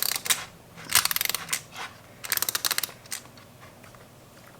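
Ratcheting winder on a screen-protector installation jig being wound up by hand: three quick runs of rapid clicks, the last ending about three seconds in.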